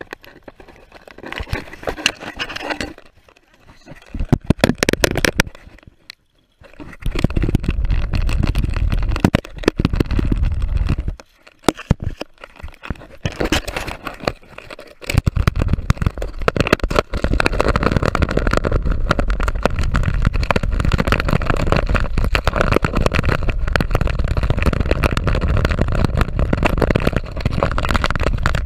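Handling noise from a loose action camera: rubbing, scraping and knocks as it is picked up and moved against clothing and fabric, turning into steady loud rubbing with deep rumble for the second half.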